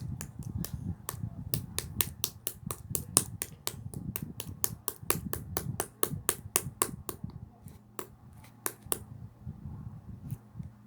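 Slime being squeezed and stretched by hand, giving a quick run of sharp clicks and pops, about four a second, over a low squishing rumble; the clicks thin out about nine seconds in.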